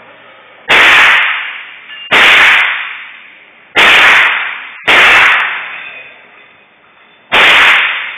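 Five shots from a .22 rifle fired at uneven intervals, each a sharp crack that trails off in echo over about a second.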